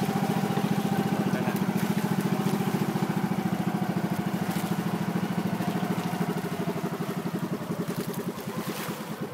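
Outrigger boat's engine running with a fast, even pulsing, getting somewhat quieter over the last few seconds.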